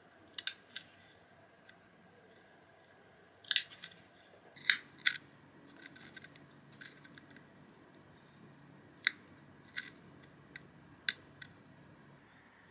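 Small embroidery scissors snipping fabric, cutting the cloth into tabs around a hole. About a dozen short, sharp snips come singly and in quick pairs with pauses between, the loudest a little under five seconds in.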